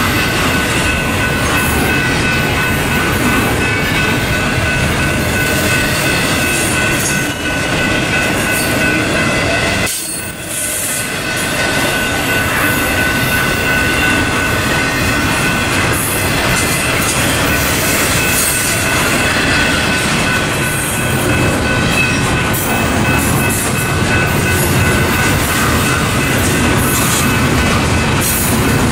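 BNSF double-stack intermodal train's container well cars rolling past: a steady rumble and rattle of steel wheels on rail, with a steady high-pitched wheel squeal over it. The noise dips briefly about ten seconds in.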